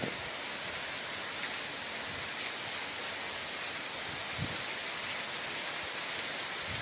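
Steady rain falling, an even hiss of many raindrops.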